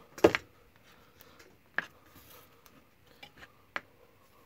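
Handling knocks and clicks as a small wooden block and a metal hollow punch are picked up and set against a paper gasket on a cutting mat. There is one loud knock about a quarter second in, a second near the two-second mark, and a few light ticks later on.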